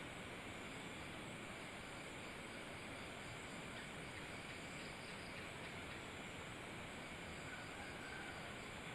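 Steady, faint background hiss with no distinct events, and a faint high tone briefly near the end.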